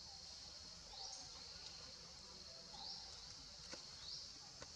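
Faint outdoor ambience: a steady high insect drone, with a short rising chirp repeated four times and two light clicks near the end.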